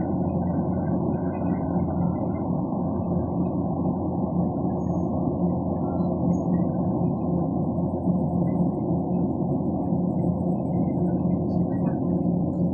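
Kubota DC-120X combine harvester running steadily, a constant low mechanical drone with an even hum.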